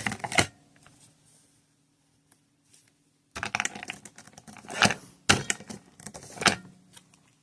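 Plastic clicks and clacks of a Magic Mixies Pixlings toy bottle being pressed down to work its reveal mechanism. After a quiet first few seconds, a quick run of sharp clicks starts about halfway in, with a few louder clacks near the end.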